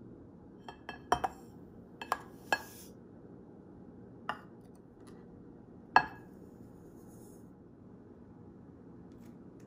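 Dishes and kitchen utensils clinking: a cluster of light clinks in the first three seconds, another about four seconds in, and the loudest about six seconds in, each ringing briefly, over a faint steady room hum.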